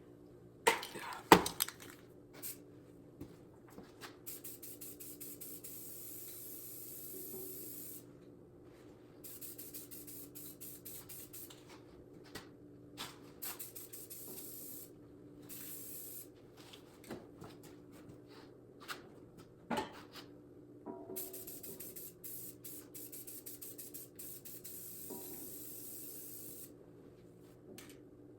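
Spray paint hissing in bursts of several seconds with short pauses between, as a part is sprayed. A sharp knock sounds about a second in.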